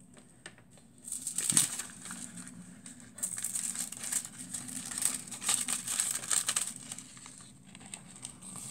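Sheet of silver transfer foil and tissue paper crinkling as they are lifted and peeled back off a foiled card. The crinkling comes in irregular crackly bursts, starting about a second in and loudest just after.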